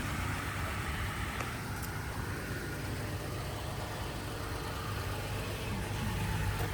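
2019 Toyota Tacoma pickup's engine idling steadily.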